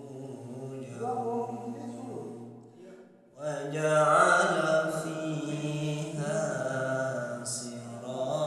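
Man's voice reciting the Quran in a melodic, chanted style, with long held and gliding notes. The voice pauses briefly about three seconds in, then resumes a little higher and louder.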